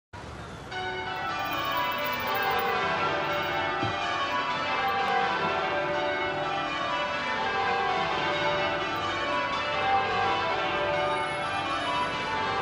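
Church bells change ringing, the bells of Westminster Abbey, struck one after another in quick descending rows with the notes overlapping and ringing on.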